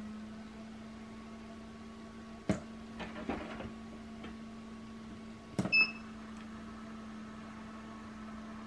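Small tabletop egg incubator running with a steady electric hum during a test run of its egg turner. Sharp clicks from its control panel and turner tray about two and a half and five and a half seconds in, the second followed by a short beep.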